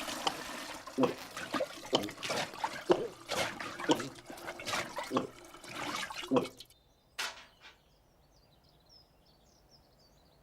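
Water splashing and sloshing in a quick run of uneven splashes that stops abruptly about six and a half seconds in. After that there is a single click and faint, high chirping.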